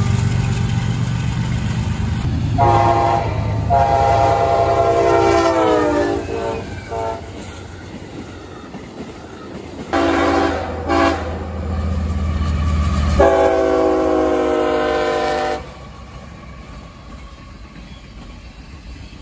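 Freight diesel locomotive air horns sounding a series of short and long blasts of several tones at once. One long blast falls in pitch near its end as the train passes. Underneath is the low rumble of the locomotives and the rolling cars.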